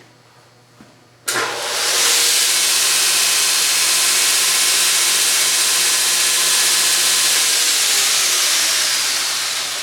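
Homemade belt grinder fitted with a 2-inch belt, switched on about a second in: its motor comes up to speed in under a second and the belt runs with a loud, steady hiss, then it is switched off near the end and winds down gradually.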